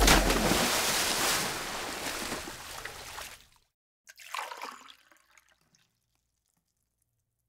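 A rushing wash of noise that fades away over about three and a half seconds as the music ends, then a brief faint sound about four seconds in, followed by silence.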